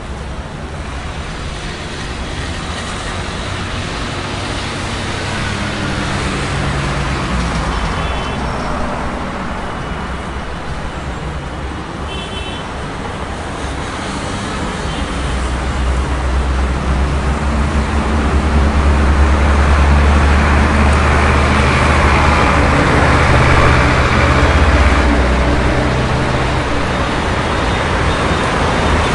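City street traffic: a continuous wash of passing cars and buses. A deep engine rumble swells to its loudest past the middle and then eases off. Two brief high squeals come in the first half.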